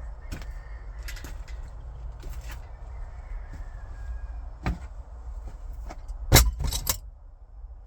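Metal hand tools clinking and rattling over a low background rumble, with a sharp knock past the middle and a loud cluster of knocks near the end.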